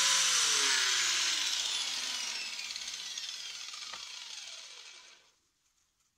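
An electric motor switched off and spinning down: its whine and hiss fall steadily in pitch and fade, with a small click about four seconds in, and it stops about five seconds in.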